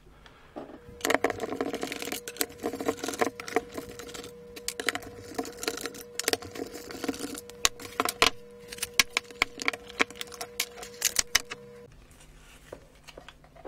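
A hot air gun's plastic housing being unscrewed and opened by hand: a run of small clicks, scrapes and rattles of screwdriver, screws and plastic parts, with a faint steady hum behind it that stops near the end.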